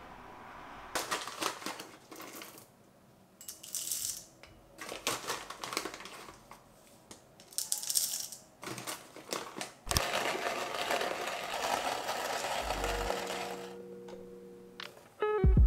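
Hand-crank burr coffee grinder crushing roasted coffee beans, coming in repeated crunchy bursts as the crank turns, followed by a steadier stretch of grinding noise.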